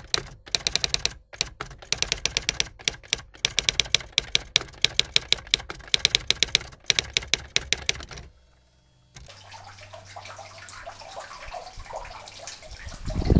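Typewriter sound effect, keys clacking rapidly in runs, for about eight seconds. After a short pause, a tiered patio fountain's water runs and trickles steadily into its basin.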